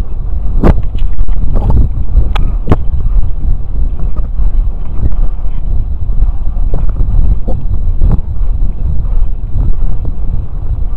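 Wind buffeting the microphone of a model rocket's on-board camera as the rocket drifts down after apogee: a loud, steady low rumble with scattered sharp knocks.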